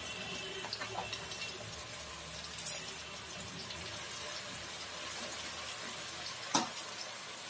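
Potato strips deep-frying in hot oil in an aluminium kadai, a steady bubbling sizzle, during the first fry to light golden. A wire mesh skimmer stirs them, with two sharp clicks, one about three seconds in and one about a second before the end.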